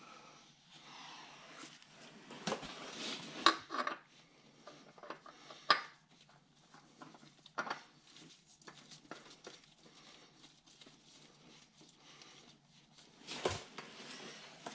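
Scattered metal clinks, knocks and rustling of hand work as a new oil filter is wiped off and spun on by hand, with a sharper knock near the end.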